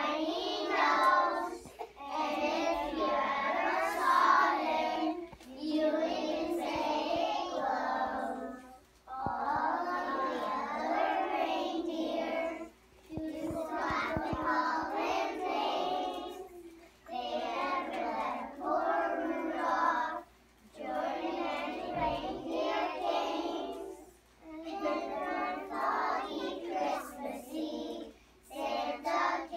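A group of kindergarten children singing a song together, in sung phrases of a few seconds with short breaks between them.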